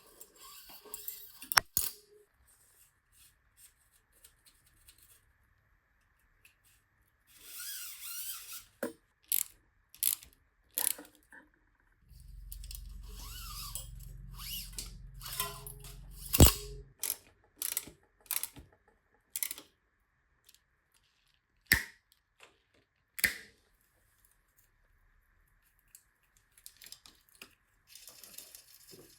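Hand work on bicycle parts: scattered sharp clicks and clinks of metal tools and components, a few of them loud single knocks, with a low hum lasting about five seconds in the middle.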